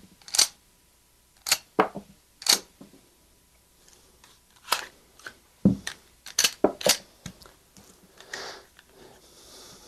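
Cutaway Glock pistol's slide and action worked by hand, feeding and ejecting rounds: a dozen or so sharp metallic clicks and clacks at uneven spacing, with a quick run of them a little past halfway.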